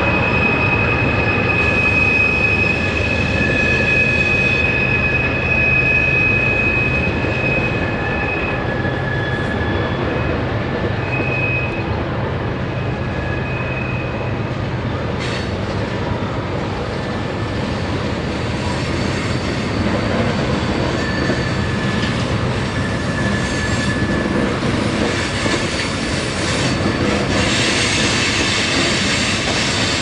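Union Pacific freight train of tank cars rolling through a curve: a steady rumble from the cars with high-pitched wheel squeal, two steady squealing tones that hold for about the first eight seconds, then come and go.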